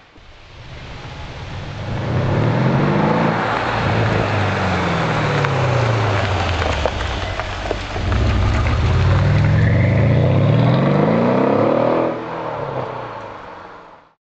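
Mercedes S63 AMG's 5.5-litre twin-turbo V8 through custom stainless-steel rear silencers, accelerating hard: the engine pitch climbs, falls away, then climbs steeply again in a second pull that cuts off sharply about twelve seconds in. The sound then fades out.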